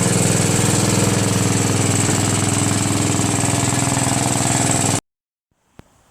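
Small lawn tractor engine running steadily at a fast, even beat. It cuts off abruptly about five seconds in.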